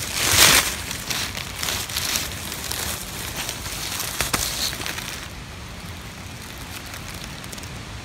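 Dry leaf litter and soil rustling and crackling close to the microphone as a hand digs through it, loudest in the first second. The rustling stops about five seconds in, leaving a steady hiss.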